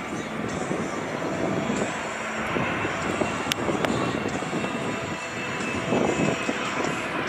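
Boeing 787-8 airliner on final approach with landing gear down, its jet engines making a steady rushing noise with a faint high-pitched whine.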